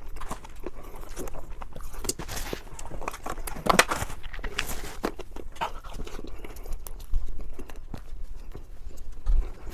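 Close-miked eating sounds: irregular wet chewing, smacking and crunching, with a louder burst of crunching about four seconds in.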